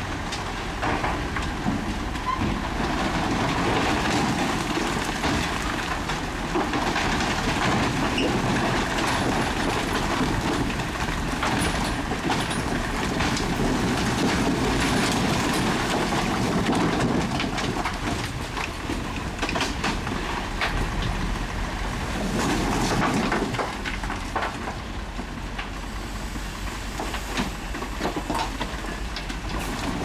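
Komatsu crawler bulldozer at work: its diesel engine running steadily under load, with a dense clatter of knocks and rattles from the steel tracks.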